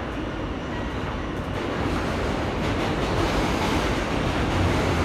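R160B subway car running through a tunnel: a steady rumble of wheels on rail and car noise, growing a little louder about two seconds in.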